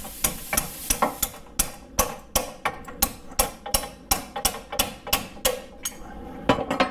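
Hand hammer striking steel on a truck's front suspension: a steady run of sharp metal blows, about three a second, with a few harder hits near the end, as a part is worked loose.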